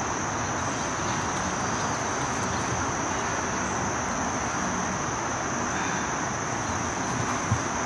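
Steady chorus of insects, one unbroken high-pitched buzzing tone over a soft background hiss. A single soft knock comes near the end.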